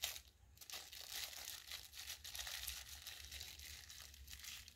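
Faint, irregular crinkling of a plastic bag as a new wheel bearing is taken out of its wrapping and handled.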